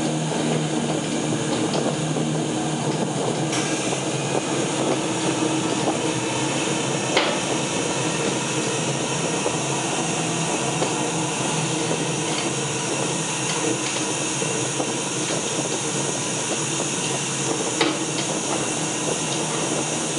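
Stage fire effect on a pyre set running: a steady rushing noise with a few sharp cracks, about 3.5, 7 and 18 seconds in.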